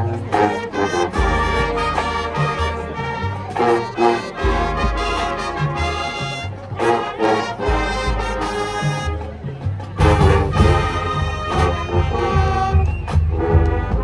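High school marching band playing a brass-led tune, trumpets and trombones over a stepping low-brass bass line.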